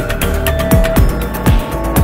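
Electronic background music with a steady drum beat, ticking high percussion and held synth notes.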